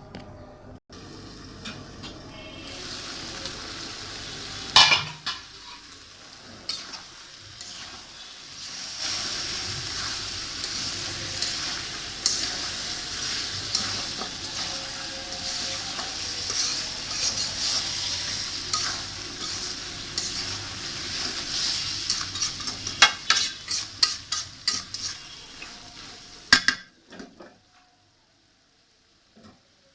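Meat frying and sizzling in a pan while a spoon stirs it, scraping and knocking against the pan. Near the end comes a run of quick clinks, then the sound stops abruptly.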